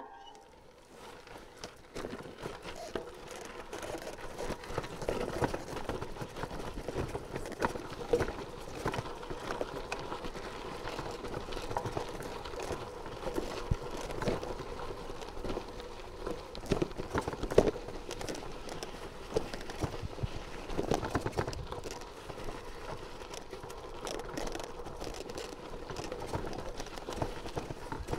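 Bicycle rolling over a rough gravel track: tyres crunching over loose stones with frequent irregular knocks and rattles from the bike, getting louder about two seconds in.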